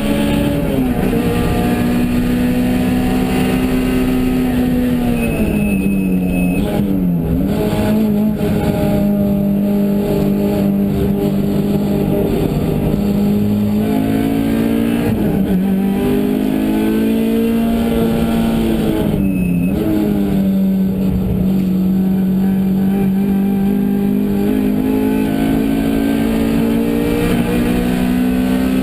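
A car engine running with a steady droning note whose pitch sags and recovers about a third of the way in and again past the halfway mark. This is the weird noise the owner is asking about.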